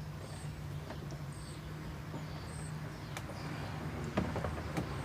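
Small birds chirping now and then over a steady low hum, with a few sharp clicks and taps.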